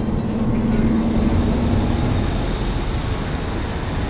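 Steady low rumble of a rapid-transit bus on the move, heard from inside the passenger cabin, with a faint steady hum that fades out about halfway through.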